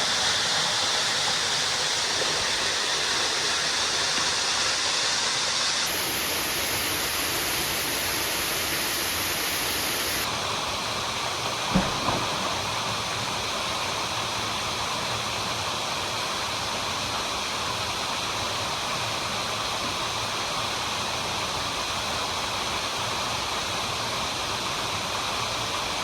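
Waterfall rushing steadily into a pool, its tone changing abruptly twice in the first half as the vantage point changes. A single brief knock about twelve seconds in.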